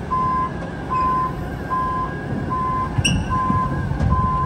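Heavy machine's travel/backup alarm beeping at an even pace, about one beep every 0.8 seconds, six beeps in all, over a diesel engine running. A sharp metallic clink about three seconds in.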